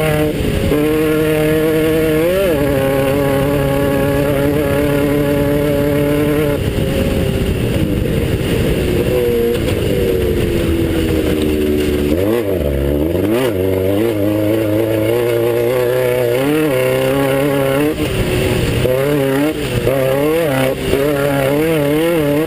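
Class 9 off-road race buggy engine under hard driving. It holds steady high revs for several seconds with one quick blip, then winds down, then revs rising and falling again and again, over constant rattle and rushing noise from the car.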